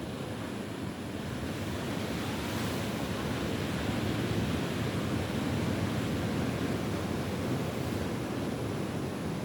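Sea surf washing on a beach: a steady rushing that swells about two seconds in and holds.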